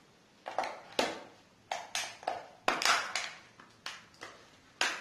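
The plastic casing of an Asus K52 laptop battery pack cracking and clicking as it is prised apart by hand, about a dozen sharp snaps at irregular spacing.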